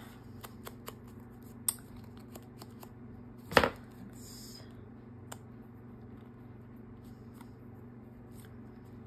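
Crafting handling noises: scattered small clicks and rustles of paper and tools, with one sharp knock about three and a half seconds in, over a steady low hum.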